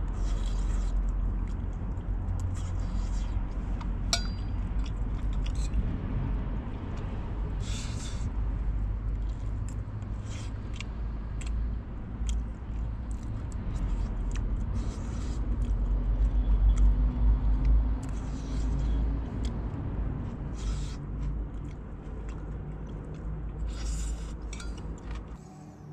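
Metal utensils clinking and scraping against a pan and dishes in a string of short, sharp knocks, over a steady low rumble that swells about two thirds of the way through.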